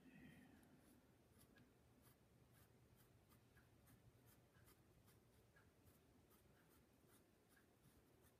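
Faint pencil strokes on paper, short light scratches about twice a second as a small circle is sketched in graphite.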